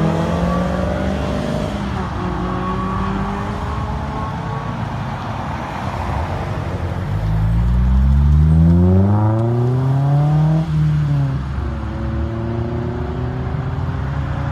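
Honda S2000 four-cylinder engines driving past. About halfway through, one accelerates hard, its pitch climbing steeply for about three seconds before dropping off sharply, and then steadier engine notes carry on.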